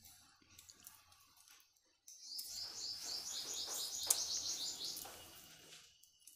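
A small bird chirping a fast run of repeated high notes for about three and a half seconds, starting about two seconds in. Faint scraping of a vegetable peeler on mango skin comes before it.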